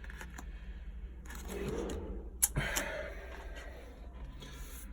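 Faint rustling and scraping of a paper phone book's pages being handled, with a sharp click about two and a half seconds in.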